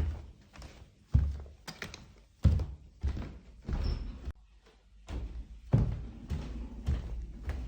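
Heavy footsteps: a series of low, thudding steps, roughly one to two a second, with a brief pause a little past the middle.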